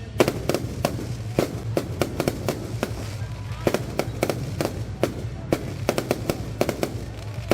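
Firecrackers going off in an irregular run of sharp bangs, several a second, over a steady low rumble.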